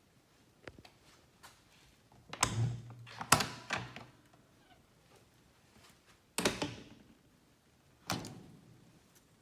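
Travel trailer's rebuilt door being worked: a few separate thunks and latch clicks, spread a second or more apart.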